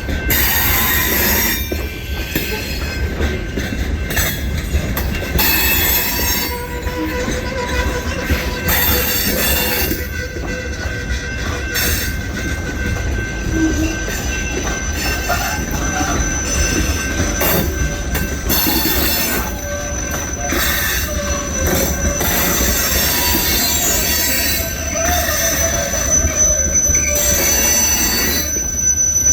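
Freight train rolling past, its steel wheels squealing against the rail over a steady rumble and rattle of the cars. Several thin high squeals hold throughout, and a still higher one grows stronger in the second half.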